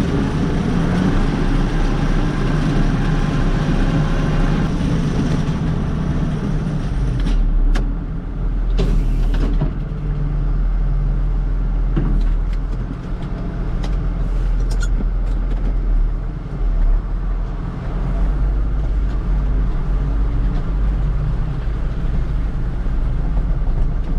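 Tractor engine running steadily while driving a feeder wagon's augers off the PTO. A high whine cuts off about seven seconds in, and a few sharp knocks follow.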